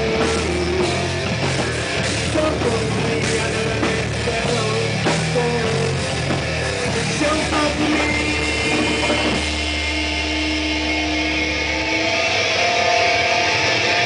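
Heavy metal band playing live: a drum kit, a bass guitar and an electric guitar. The drums drop back about nine and a half seconds in, leaving held guitar and bass notes ringing.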